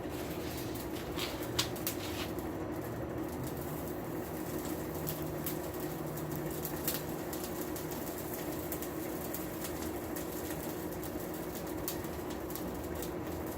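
Hardwood lump charcoal fire burning hard in a blacksmith's forge: a steady rushing hum, with a few sharp pops and snaps in the first couple of seconds and one more about seven seconds in.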